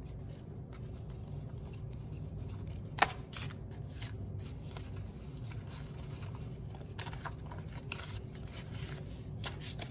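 Paper banknotes being handled, counted and slid into a plastic binder pocket: soft rustling and scraping, with one sharp click about three seconds in, over a steady low hum.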